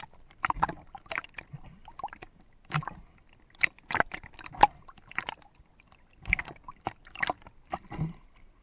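Water sloshing and splashing in short, irregular knocks and splashes, a few a second.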